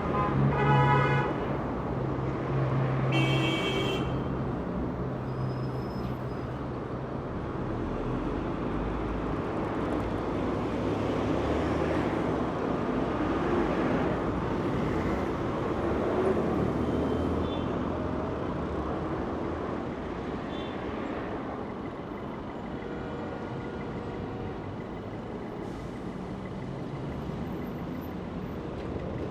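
Heavy city traffic: trucks, buses and cars rumbling past with steady road noise, and two short horn toots in the first few seconds.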